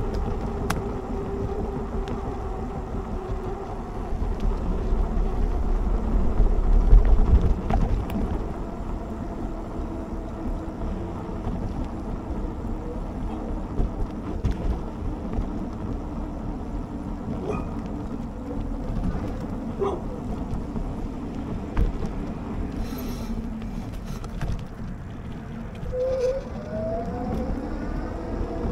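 Riding noise from a Lectric XP Lite e-bike on a sidewalk, picked up by the action camera's microphone: a steady rumble of tyres and wind, heaviest about six to eight seconds in. A faint whine runs under it, from the rear hub motor, and rises in pitch near the end.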